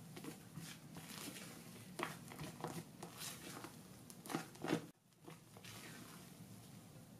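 A spatula folding airy coffee sponge batter in a glass bowl: soft wet squelches and scrapes of the blade through the foam and against the glass, a stroke at a time, loudest about two seconds in and again between four and five seconds in. The sound drops away abruptly just before five seconds in.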